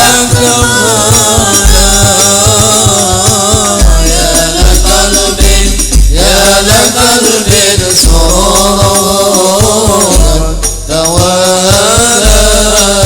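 Voices chanting an Arabic devotional qasidah in sung phrases, accompanied by hadrah frame drums with repeated deep bass strokes and jingling percussion.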